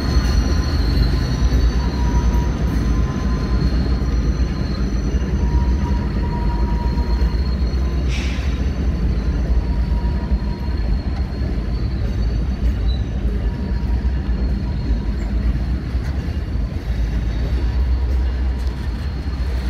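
Diesel-electric freight locomotives, a Kansas City Southern SD70ACe and a Canadian Pacific AC4400CWM, pass at close range with a deep, steady engine rumble, followed by loaded gondola cars rolling by. Thin, steady high wheel-squeal tones run over it, with a short hiss about eight seconds in.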